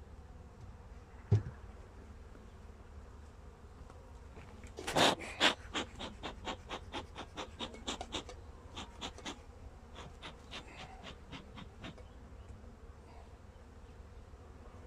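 Honeybees buzzing around an open hive. There is a sharp knock about a second in, then from about five seconds a quick run of clicks, some three or four a second, which starts loud and fades out by about twelve seconds.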